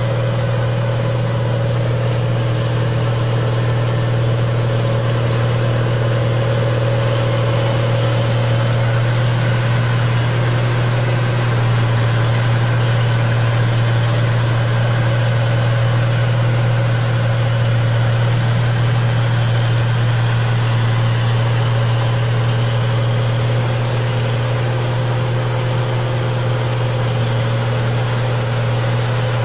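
Engine of a paddy (rice) machine running steadily at an even speed, a constant deep hum with a steady higher drone above it.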